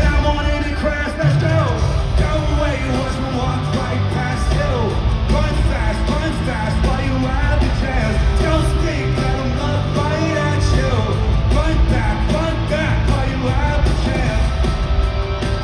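Live pop-punk rock band playing at arena volume with a singer's vocals over heavy bass and drums, picked up by a phone microphone in the crowd. A thick bass line comes in about a second in.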